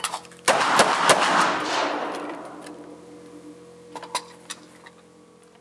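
Three rapid shots from a Glock pistol, fired within about half a second, one at each of three targets at close range. The reports ring out and fade over about two seconds.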